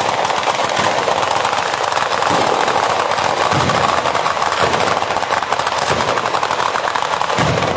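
Batteria alla bolognese, a ground-level chain of firecrackers, going off in a rapid, unbroken volley of bangs like machine-gun fire, with a few heavier bangs among them.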